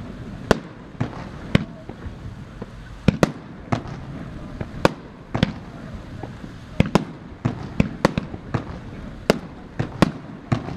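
Fireworks display: aerial shells bursting in a rapid, irregular series of sharp bangs, roughly two a second and some in quick pairs, over a steady background rumble.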